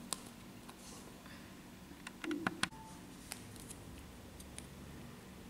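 Faint handling of a small piece of paper: scattered light clicks and crinkles, with a short cluster of louder clicks about two seconds in.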